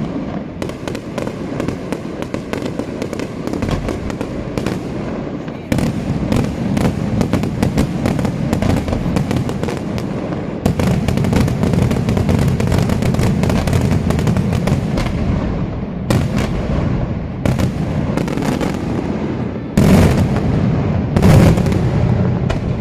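Daytime aerial fireworks going off in a dense, continuous barrage of crackling and bangs. Heavier volleys come in about 6, 11 and 20 seconds in.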